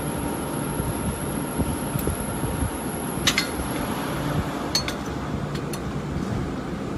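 Small bench tablet press being turned over by hand at its flywheel, its metal parts giving a few light metallic clinks, the loudest about three seconds in, over a steady background drone.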